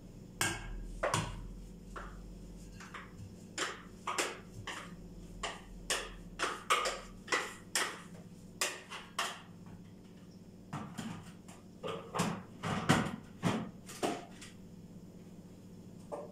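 Irregular series of short knocks and clinks, about two a second, from a metal bowl and the plastic jar of a food processor being handled as the bowl is emptied into it. There is a short pause partway through.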